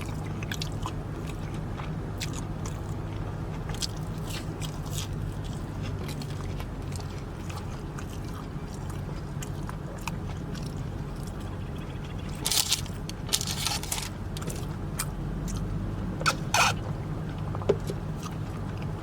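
Close-up chewing and biting of McDonald's breakfast food, with small mouth clicks and a few louder crunchy bursts near the two-thirds mark, over a steady low hum.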